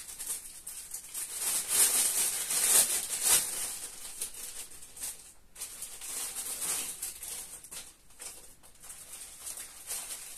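Plastic packaging crinkling and rustling as a kit bag is handled and opened, loudest a couple of seconds in, then lighter, irregular rustling.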